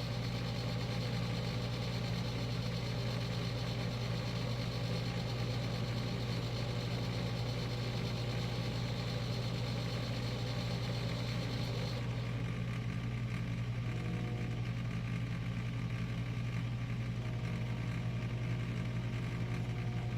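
Steady low hum of a vehicle engine running at idle.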